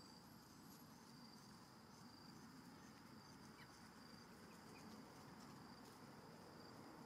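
Faint forest insect ambience: a steady high-pitched insect drone, with a few faint short chirps a little past halfway.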